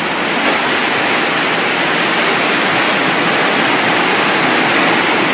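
Steady, loud rush of water from heavy typhoon rain and floodwater, unbroken throughout.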